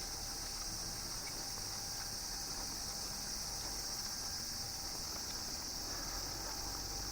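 Steady, high-pitched chorus of insects such as crickets, running without a break.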